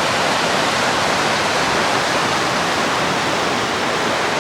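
Rapids of the Niagara River rushing: a loud, steady roar of fast white water.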